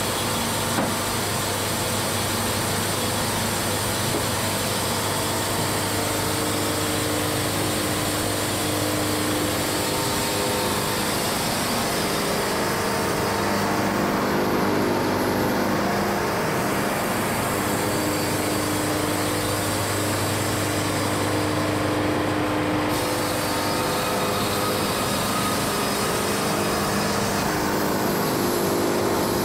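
Wood-Mizer LT70 band sawmill running steadily, its engine holding an even, unbroken drone.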